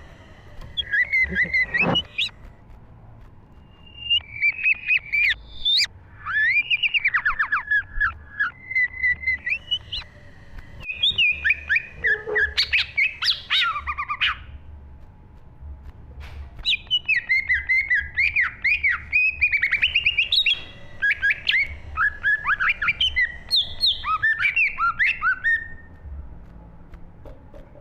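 A cucak ijo (green leafbird) singing a long, varied song of rapid chattering and whistled phrases that swoop up and down. It comes in several long bursts with short pauses between.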